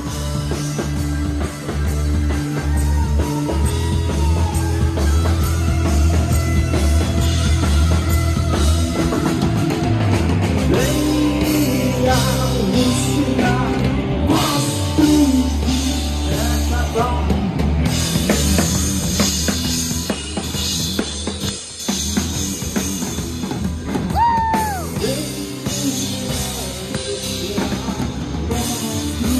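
A rock band playing live on stage during a soundcheck: drum kit and electric guitar over a heavy, steady low end, with sliding notes in the middle and again near the end.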